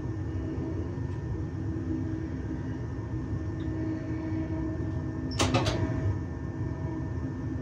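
Cab of an electric regional train rolling at low speed: a steady low rumble with a constant motor hum. About five and a half seconds in come two sharp clacks a third of a second apart, the wheels knocking over rail joints as the train runs through the points onto the diverging track.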